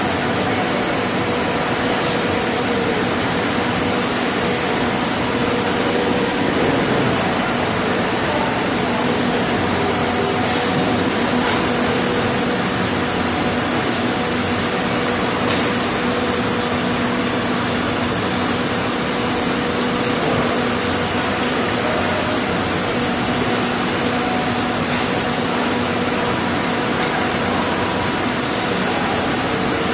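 Steady loud drone of machinery in a meat-processing boning room: an even hiss with a constant hum under it.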